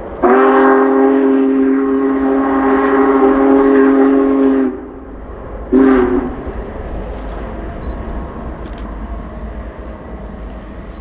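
Union Pacific Big Boy 4014's steam whistle sounding one long blast of about four and a half seconds, then a short one, over a steady low rumble.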